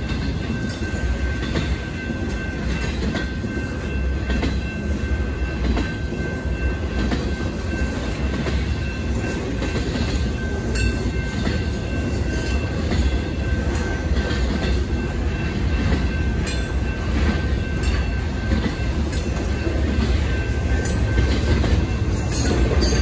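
Intermodal freight train's flatcars, loaded with trailers and containers, rolling past at a railroad crossing: a steady rumble with scattered clicks of wheels over the rail, and a thin steady high tone through most of it.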